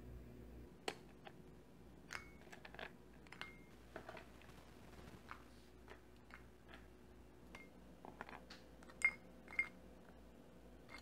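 Crisp toasted bread cubes being lifted with tongs and dropped into a glass bowl: a scatter of light clicks and taps, several with a short glassy ring, the two loudest clinks near the end.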